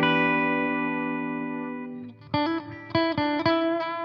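Electric guitar with its pickup selector on bridge plus middle (Seymour Duncan bridge mini humbucker with an SSL-7 middle single-coil), played through a Boss Katana amp head. A chord rings and fades for about two seconds, then a quick run of picked notes and chords follows and dies away.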